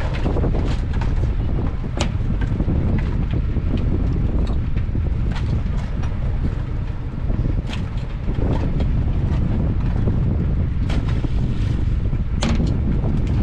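Wind rumbling steadily on the microphone aboard a small fishing boat, with scattered sharp clicks and knocks, about half a dozen, as red king crabs are handled and sorted on deck.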